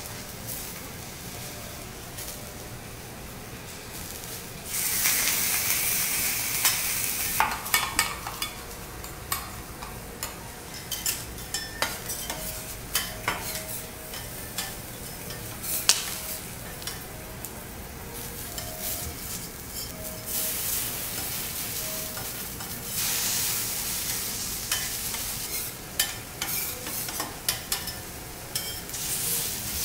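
Abalone and minced garlic sizzling on a hot steel teppanyaki griddle, with metal spatulas and a knife clicking and scraping on the plate. The sizzle swells loudly about five seconds in and again after about twenty seconds.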